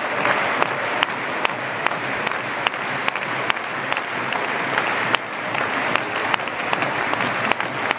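Football stadium crowd clapping, sharp claps near the microphone keeping a rough beat of about two to three a second over a general crowd noise.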